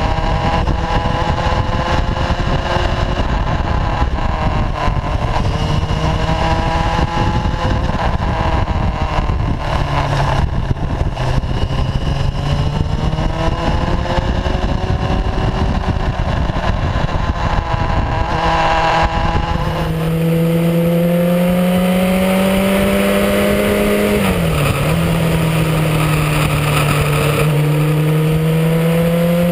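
Motorcycle engine running under way, its pitch climbing as it accelerates and dropping sharply at gear changes, twice in the last third. Wind rushes over the bike-mounted camera's microphone through the first two-thirds, then eases and leaves the engine clearer.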